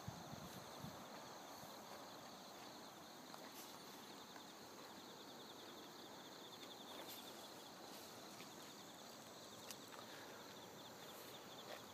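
Faint insects in the grass trilling: a steady, high, evenly pulsing chirr, with a few faint ticks.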